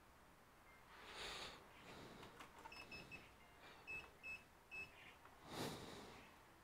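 A handful of very short, high electronic beeps from a bench digital multimeter, the first few close together about three seconds in and the rest spaced a few tenths of a second apart. Soft rustles of handling come about a second in and again near the end, the later one the loudest.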